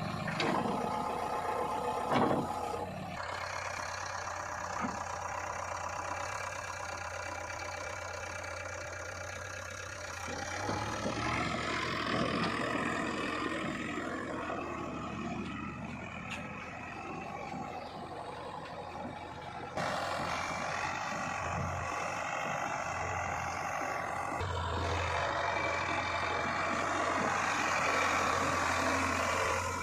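Diesel engine of a JCB 3DX backhoe loader running and working under varying load, with a sharp knock about two seconds in. The engine sound changes abruptly twice, about a third and two thirds of the way through.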